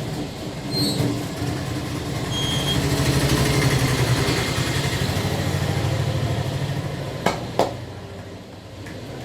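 A motor vehicle's engine running close by, growing louder over a few seconds and then fading away. Two sharp clicks come near the end, a third of a second apart.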